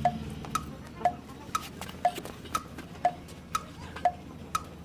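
Clock ticking steadily, about two ticks a second, alternating a lower tick and a higher tock.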